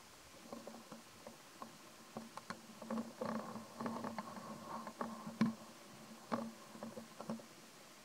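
Macaque biting and chewing a green fruit close to the microphone: a run of small, irregular crunches and clicks, busiest in the middle, over a faint steady hum.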